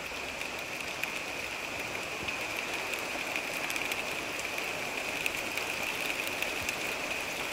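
Steady rain falling outside a window: an even hiss with many small drops ticking throughout.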